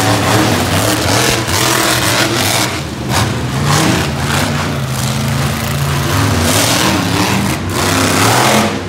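Krazy Train monster truck's engine running loud, revving up and easing off several times as the truck drives.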